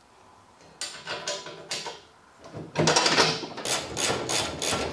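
Hand work on bare metal: a few sharp metallic clicks and taps, then a louder scrape. A steady run of ringing metal strikes follows, about three a second.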